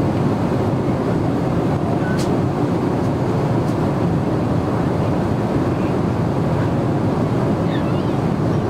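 Steady cabin noise inside a Boeing 777-300ER in flight: a deep, even rushing of air over the fuselage mixed with the jet engines. A faint click about two seconds in.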